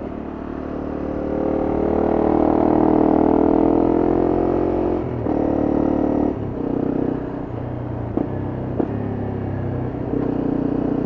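Honda CRF250M's single-cylinder four-stroke engine pulling under acceleration, its pitch climbing over the first few seconds. It breaks off briefly twice, about five and six seconds in, as for gear changes, then runs on at a steadier, lower pitch, with two short clicks a little past halfway.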